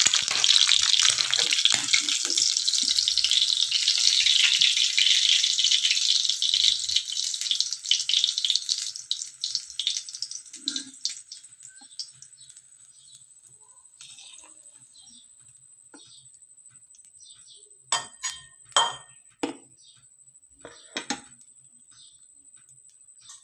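Fried rice sizzling in a pan while it is stirred; the sizzle fades away around ten seconds in. Near the end come a few sharp clinks and knocks of utensils or dishes.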